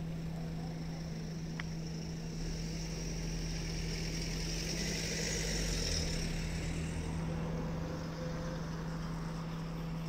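A motor engine running close by, growing louder towards the middle and fading again, over a steady low hum.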